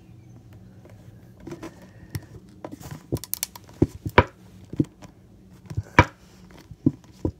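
Upside-down plastic Gain liquid laundry detergent bottle being tapped and squeezed to force out the last of the detergent: a string of irregular sharp knocks and plastic clicks, the loudest about four and six seconds in.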